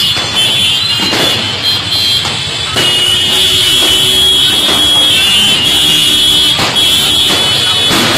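Diwali firecrackers going off: sharp bangs every second or two over a steady, shrill high-pitched tone that grows louder about three seconds in.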